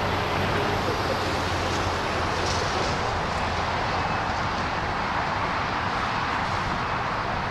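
Steady outdoor background noise with a constant low hum underneath, no distinct events.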